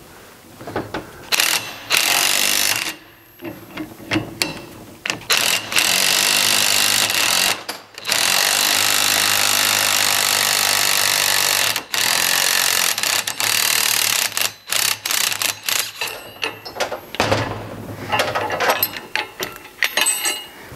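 A cordless DeWalt driver runs in several bursts of one to four seconds, the longest about eight seconds in, spinning the forcing screw of a two-legged gear puller. It is drawing the distributor and intermediate-shaft drive gears off the nose of a 911 crankshaft. Short metal clicks and rattles from the puller and gears come between the runs.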